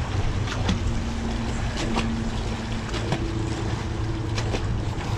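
Magnet-fishing rope being hauled up hand over hand over a wooden walkway rail, with short knocks and clicks, over a steady low drone with a couple of held tones.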